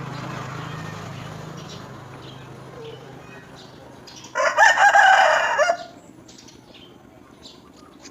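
A loud bird call of about a second and a half, starting about four seconds in, its pitch wavering.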